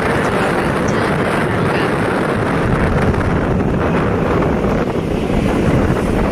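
Steady wind buffeting the microphone of a moving motorcycle, with the motorcycle's engine running underneath.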